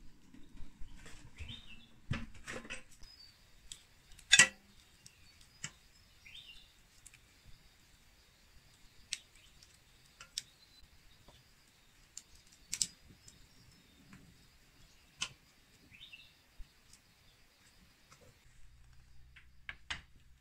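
Scattered sharp clicks and knocks, one much louder than the rest about four seconds in, with a few short bird chirps in between.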